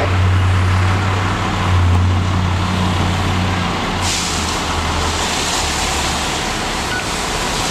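Fire engine's diesel engine running steadily at the scene, a low hum under a broad rushing noise. The rushing turns brighter and hissier about four seconds in, and the engine hum fades near the end.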